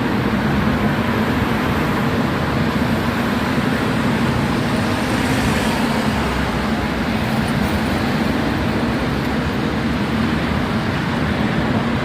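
A vehicle running steadily: a constant low engine drone under an even haze of road and wind noise, with no change in pace.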